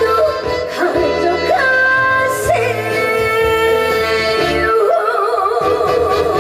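A woman singing live over a band accompaniment. Her notes slide and bend, then from about five seconds in she holds one long note with a wide vibrato.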